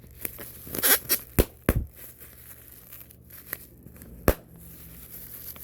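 Plastic bubble packaging being crinkled and popped: soft crinkling with a few sharp pops, two close together about a second and a half in and another about four seconds in.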